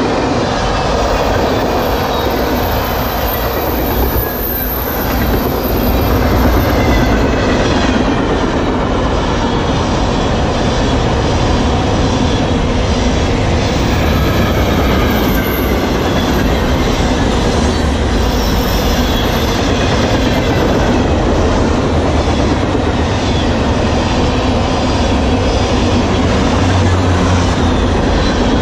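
Freight cars of a CN freight train rolling past close by: a steady rumble of steel wheels on rail with repeated clickety-clack over the rail joints. A thin high wheel squeal comes and goes near the start and again midway.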